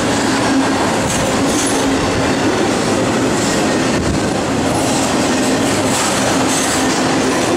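Intermodal freight train's flatcars, loaded with highway trailers, rolling past close by: a loud, steady rumble and clatter of steel wheels on rail with a steady low hum and brief high squeals now and then.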